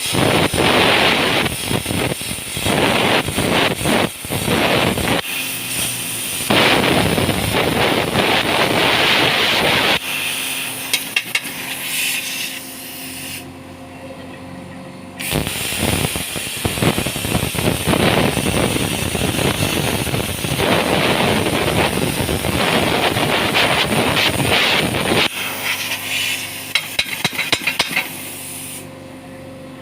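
Angle grinder with a cutting disc cutting into steel plate: two long stretches of loud, harsh grinding. Between them the motor keeps running with a steady whine while the disc spins freely, with a few sharp clicks and knocks.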